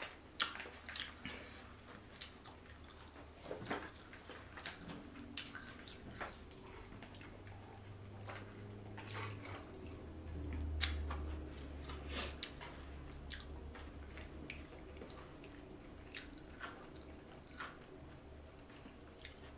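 Close-miked eating sounds: wet chewing and lip smacks of seafood, heard as scattered soft clicks and squelches over a low steady hum.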